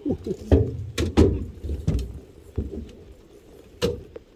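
Irregular knocks and thumps on an aluminium boat, about six of them, louder in the first two seconds and sparser toward the end.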